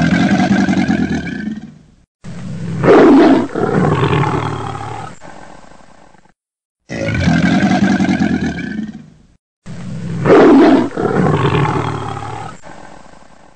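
Big cat snarling and roaring in loud bursts, each cut off abruptly into silence; the same run of two bursts plays twice over, as a looped sound effect.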